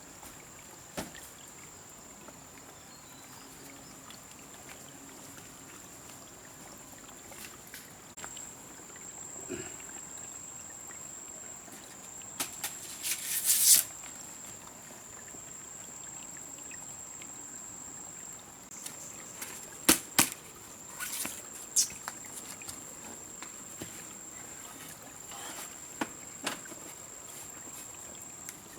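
A steady high-pitched insect drone over faint forest background noise, broken by scattered sharp knocks and clicks, the loudest a cluster about halfway through.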